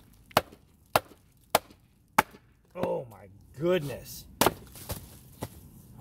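A stick batoning the Sawmill Cutlery Ark-N-Saw Bowie knife down through a piece of wet wood: four sharp knocks at an even pace, a short gap, then a loud knock and two lighter ones as the wood splits apart.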